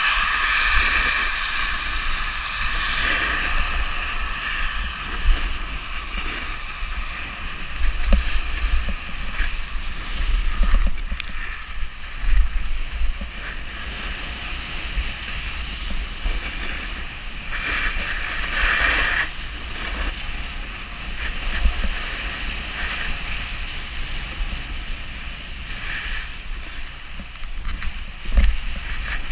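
Snowboard edge scraping and hissing over groomed snow while riding downhill, with wind buffeting the microphone. The scrape swells in places, loudest about two-thirds of the way through.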